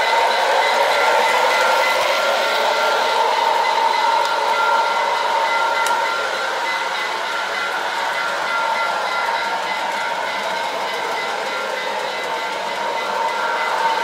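Lionel Santa Fe O-gauge model train running on its track: a steady whirr of motor and wheels rolling over the rails, with a steady whine, a little quieter through the middle and louder again near the end.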